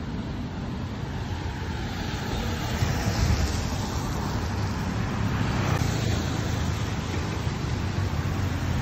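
Road traffic on a wet road: a car goes by with the hiss of its tyres on wet asphalt, growing louder from about three seconds in and passing near six seconds, over a steady low rumble of traffic.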